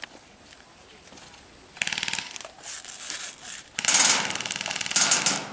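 Airsoft BB guns firing full-auto in rapid rattling bursts: a short burst about two seconds in, then a longer, louder burst near the end that pauses briefly and resumes.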